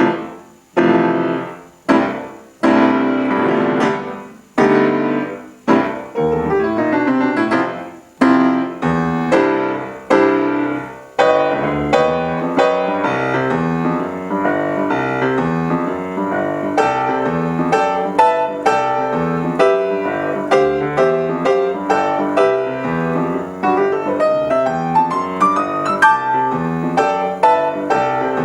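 Solo piano playing: for about the first ten seconds, loud chords struck one at a time, each left to die away, then a steady, unbroken run of notes over an evenly pulsed bass line.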